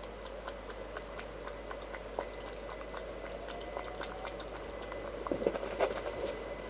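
Rain dripping and pattering as a steady hiss with many scattered light ticks, and a cluster of louder clicks about five and a half to six seconds in.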